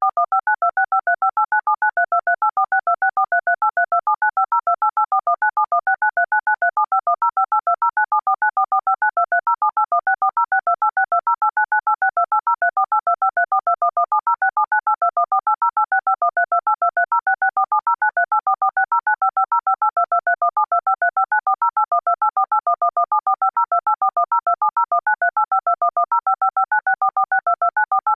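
Telephone keypad (DTMF) tones dialing out the digits of pi: a rapid, even string of short two-note beeps whose pitch pair changes with each digit.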